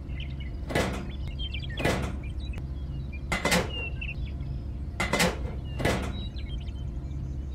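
Small pipe sections being set down and pressed into place in a dirt trench: about five separate short knocks at irregular intervals, over a steady low hum.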